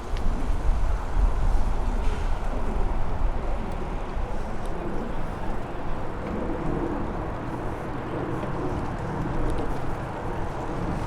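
Steady outdoor noise heard from a moving bicycle: wind on the microphone and traffic hum, with a low rumble strongest in the first couple of seconds.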